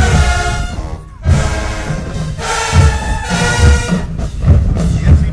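Marching band brass section playing loud held chords over heavy bass drum beats. The band cuts off briefly about a second in, then comes back in.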